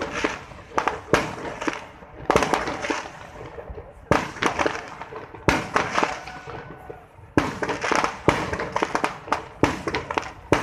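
Fireworks going off: a dozen or so sharp bangs at irregular intervals, with crackling between them, as rockets rise on sparkling trails and burst overhead.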